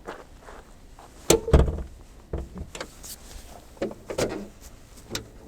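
A series of clunks and knocks of a car's body panels and latches being opened and handled, the loudest two close together about a second and a half in, with lighter knocks after.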